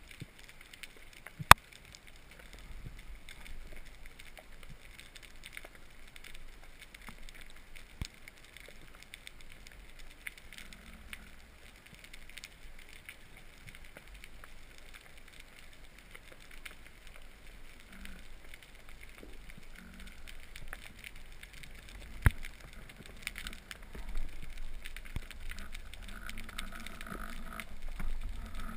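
Underwater ambience during a spearfishing dive: a faint, steady crackle of fine clicks, broken by two sharp, loud clicks, one about a second and a half in and one about twenty-two seconds in.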